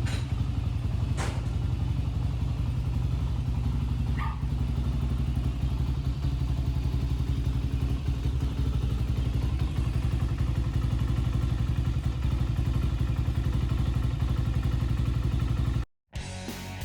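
Honda TRX400EX's single-cylinder four-stroke engine idling steadily after a full rebuild, with a few light clicks. It cuts off suddenly about a second before the end, and guitar music starts.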